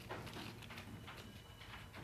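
Faint rustling and crinkling of a bar of soap's wrapper being opened by hand, with a few light ticks.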